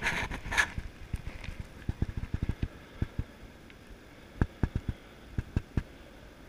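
A brief rustling scrape, then a series of soft, low thumps at irregular spacing, in two clusters.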